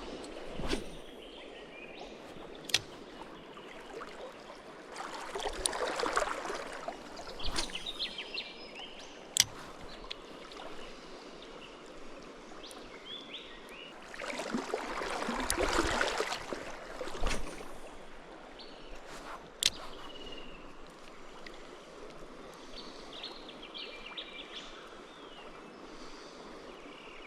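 Steady rush of a flowing river, with birds chirping now and then. There are a few sharp clicks, and two longer swells of louder rushing noise about six and sixteen seconds in.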